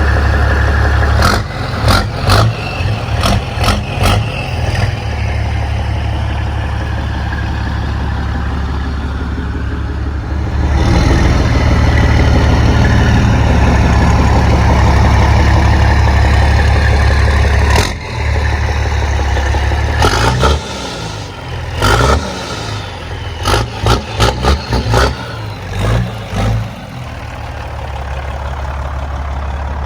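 Heavy diesel semi truck engine running with a steady low drone. It grows louder for several seconds about a third of the way in, and sharp knocks and clatters come and go over it.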